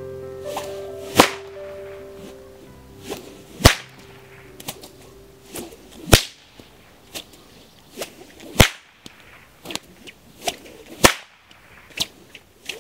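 Hemp-rope whip being cracked over and over. A loud, sharp crack comes about every two and a half seconds, with smaller snaps in between.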